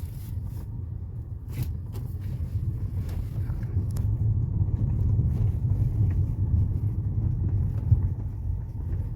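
Ford Fusion being driven: a steady low road rumble with several sharp knocks from the suspension. The knocking persists even with the stabilizer bar disconnected.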